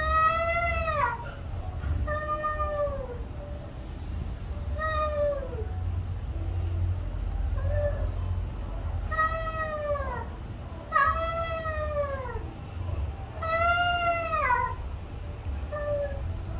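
Domestic cats in a face-off giving long, drawn-out warning yowls, each about a second long and sliding down in pitch at the end. There are about six such yowls and two short ones, spaced a second or two apart: the threatening caterwaul of cats about to fight.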